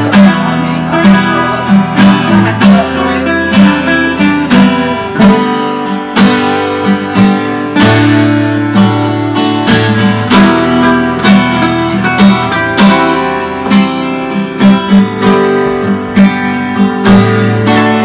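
Background music on acoustic guitar, strummed and picked with a steady beat.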